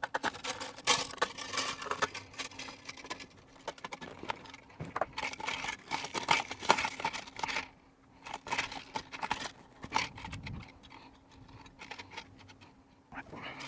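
Hands working on a metal propane tank bracket and its strap, loosening it to take the tank out: irregular clicks, rattles and scrapes of metal hardware, with a brief pause about eight seconds in and quieter handling near the end.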